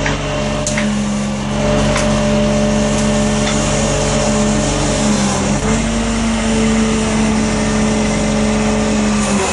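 Engine of a truck-mounted knuckleboom log loader running steadily under hydraulic load while the grapple lifts and swings a bundle of logs; its note steps slightly in pitch a couple of times as the boom is worked, clearest about halfway through. A few faint sharp clicks come over the first few seconds.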